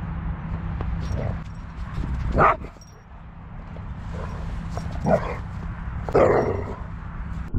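A dog makes three short calls, the loudest about two and a half seconds in, over a steady low rumble.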